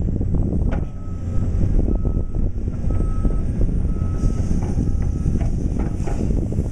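Caterpillar excavator's travel alarm beeping five times, about once a second, over the steady low rumble of its diesel engine. Occasional clanks are heard.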